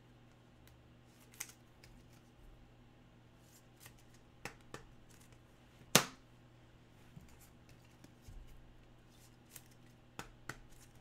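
Scattered light clicks and taps of trading cards and plastic card holders being handled on a desk, with one sharper click about six seconds in.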